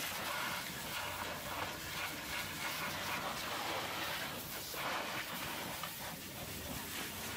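Hot-water pressure washer lance spraying onto the greasy steel chassis and components of a semi-truck tractor. The jet hisses steadily, its sound swelling and fading slightly as the spray moves over the parts.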